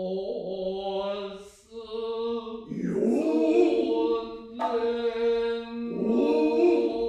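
Noh chant (utai) by men's voices: long, held, wavering syllables in several voices at once. There is a sharp hit about two-thirds of the way in.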